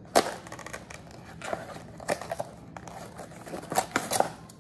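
Plastic packaging being crinkled and torn open by hand, in a handful of short, sharp rustles; the loudest comes just after the start.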